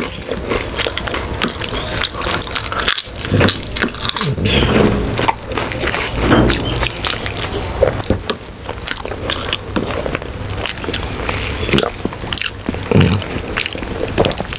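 Close-miked eating sounds: chewing and mouth sounds of a khichuri meal eaten by hand, with many short clicks and crackles throughout.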